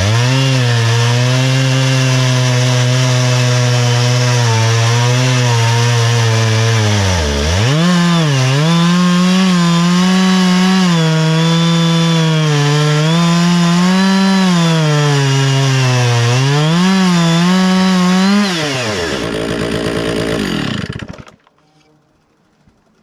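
Chainsaw in an Alaskan chainsaw mill ripping lengthwise through an oak log, running hard with its engine speed wavering under the load of the hardwood. About seven seconds in the revs dip sharply and recover higher. Near the end the engine drops off and the sound stops abruptly.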